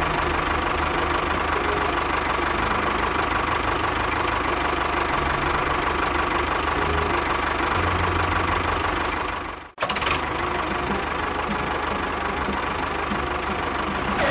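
A small engine running steadily with a fast low pulse, cut off abruptly about ten seconds in and picking up again at once.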